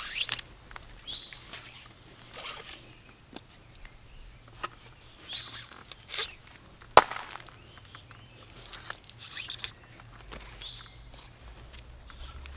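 Cord being pulled and wrapped around wooden poles as a frame lashing is tied: scattered rustling and rubbing, with a sharp knock about seven seconds in.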